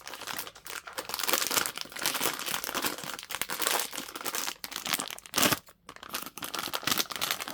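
Plastic wrapping crinkling and rustling as a blind-box figure is unwrapped by hand, with a louder crackle about five and a half seconds in.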